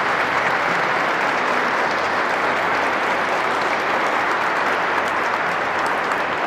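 Congregation applauding in a large church, a sustained round of clapping that tapers off slightly near the end.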